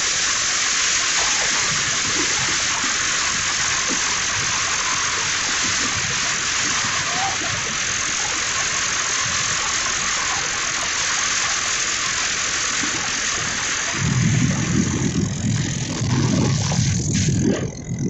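Steady rushing hiss of wind and road noise on a moving motorcycle. About 14 seconds in it gives way to louder, gusty low rumbling of wind buffeting the microphone.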